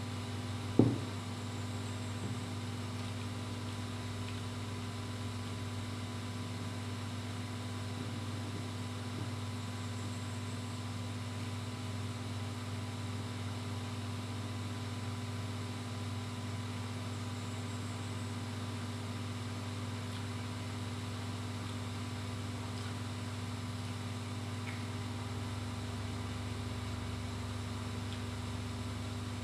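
Steady low electrical hum with no change, and a single short knock about a second in.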